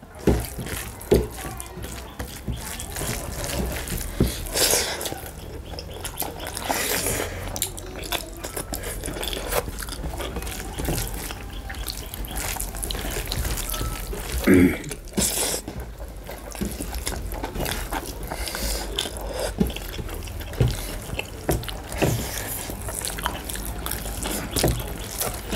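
Close-up wet eating sounds: chewing and lip-smacking, with fingers mixing rice and curry on brass plates. Many short, irregular clicks and taps.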